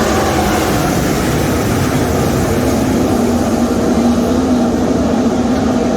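Winged sprint cars' V8 engines running at full throttle around the track, a loud steady engine drone whose pitch rises slightly partway through.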